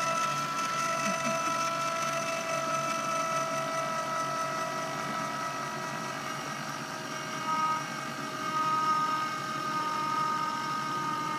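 Electric motor of a vehicle-mounted Port-A-Lift patient lift running steadily with a whine as it raises a seated person in a sling. The pitch wavers briefly twice in the second half.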